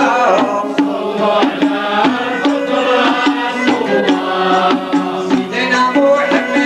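Moroccan devotional praise-song (madh) music: voices singing a melodic line over frame-drum and hand-drum strikes, about two strikes a second.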